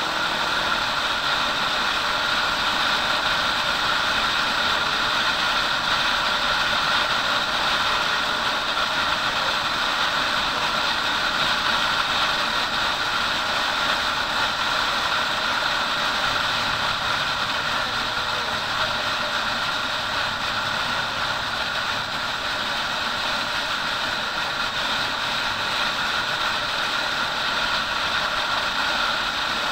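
Motorcycle cruising at a steady speed: a constant engine drone mixed with wind and road noise on the bike-mounted microphone.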